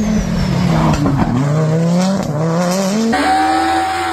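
Rally car engine under hard acceleration: its pitch dips, then climbs steadily. About three seconds in it switches abruptly to a steadier, higher engine note.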